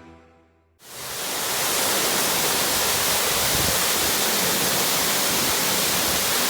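Tall waterfall's steady, loud rush of falling water, cutting in abruptly about a second in after a short near-silence.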